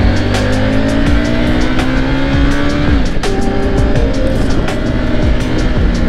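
Triumph Tiger 900 GT's 888cc inline-three engine pulling hard under full acceleration in first gear, its pitch rising steadily. About three seconds in it shifts up to second: the pitch drops suddenly, then climbs again more slowly.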